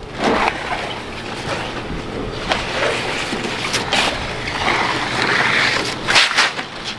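A carpet runner and ramp pieces being dragged and scraped across the wooden ramp of an enclosed car trailer, a steady rustling scrape with several knocks.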